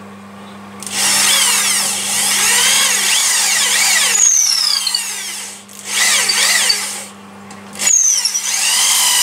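Hand-held electric drill boring a wire hole into a walnut lamp base with a long twist bit. It starts about a second in and runs in three bursts, stopping briefly past the middle and again shortly before the end.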